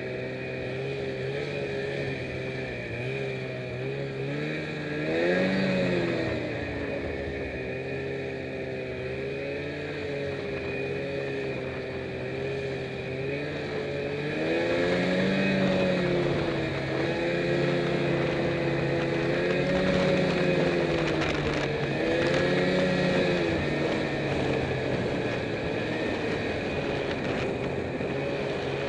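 Snowmobile engine running under way, its pitch rising and falling with the throttle: a sharp rev about five seconds in, then several longer surges in the second half.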